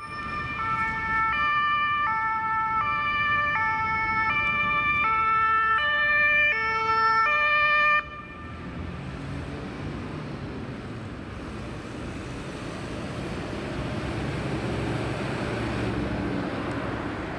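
Emergency vehicle's two-tone siren (German Martinshorn), high and low notes alternating about every 0.7 s. It cuts off abruptly about 8 s in and gives way to the steady engine and tyre noise of passing road traffic.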